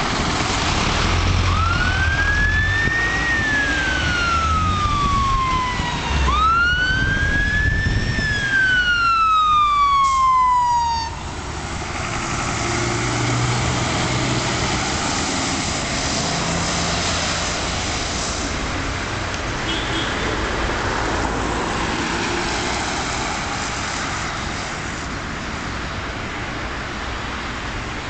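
Scania fire engine's wail siren, rising and falling slowly twice and cutting off suddenly about eleven seconds in. The fire engine's engine then passes close by, leaving steady road traffic noise.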